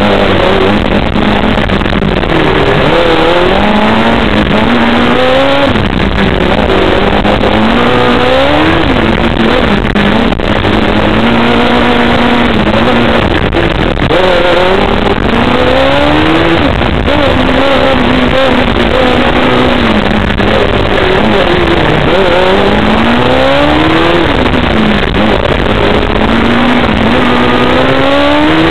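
Onboard sound of a Formula Student race car's engine running hard, its revs repeatedly climbing in short bursts and dropping back as the car accelerates and brakes between the cones of a slalom.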